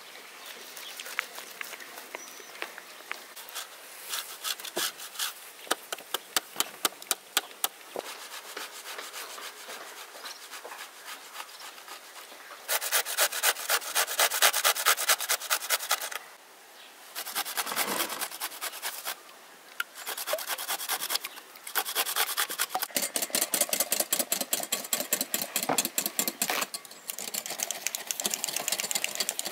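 Boiled egg and then salted cucumber being grated on a metal box grater: repeated rasping strokes. They are quieter and spaced out at first, and become louder and faster from about halfway through, with a few short pauses.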